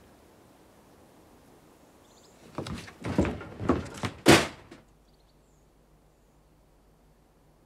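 A door being handled: a quick run of knocks and rattles over about two seconds, ending in one loud bang, then quiet.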